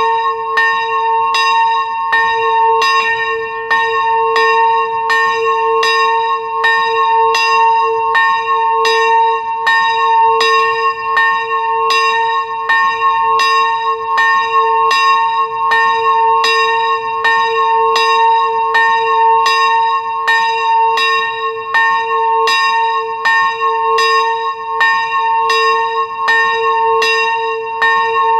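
A single church bell with a strike note of a'' (a2) swinging and ringing, its clapper striking in an even rhythm of about three strokes every two seconds, each stroke ringing on into the next.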